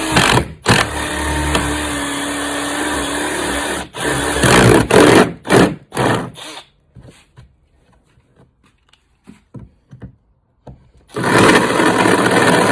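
Power drill with a 1 1/8-inch paddle bit boring through plastic: it runs steadily for about four seconds, then in several short bursts. After a pause with a few small clicks, it runs steadily again near the end.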